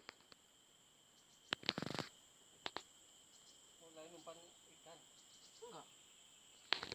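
Insects chirring steadily outdoors in two high, unchanging tones, with a few sharp clicks and faint distant voices.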